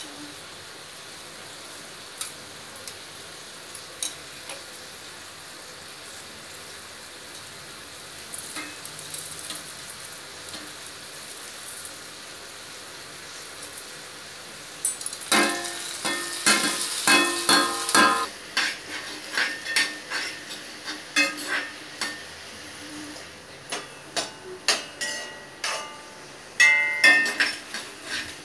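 Urad and chana dal frying in oil in a small kadai: a steady faint sizzle, then from about halfway loud, irregular clattering and clinking of steel utensils against the pan as the dal is stirred.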